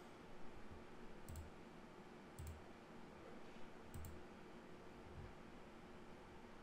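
Three faint computer mouse clicks, each a quick double tick, spaced a second or so apart over quiet room tone.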